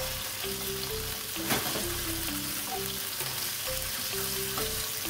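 Thinly sliced pork sizzling in hot oil in a frying pan over high heat, turned with a wooden spatula. There is a steady frying hiss, with a stronger scrape of the spatula about a second and a half in.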